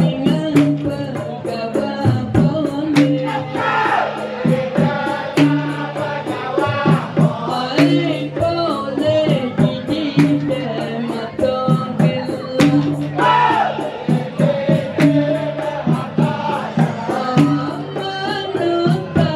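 Dikir barat: men's voices singing together over a steady, fast beat of hand percussion.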